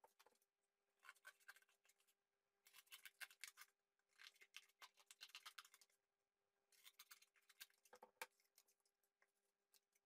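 Scissors cutting through a sheet of cardboard in four runs of quick snips, with a brief knock near the end of the last run.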